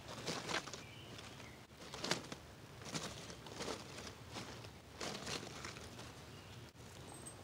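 Dry kindling and twigs rustling and crackling as they are handled and fed onto a newly lit campfire, in short crackly bursts about once a second.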